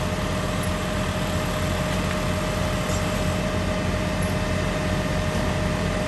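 Engines of utility bucket trucks running steadily to power the booms' hydraulics: an even low drone with a thin steady whine above it.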